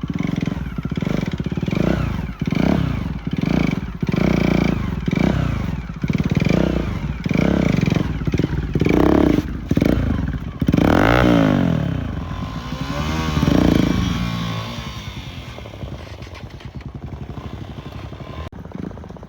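Motorcycle engines being blipped hard over and over, each rev rising and falling quickly with sharp popping from the exhaust. Two longer revs follow about halfway through, then the engine settles to a quieter steady run.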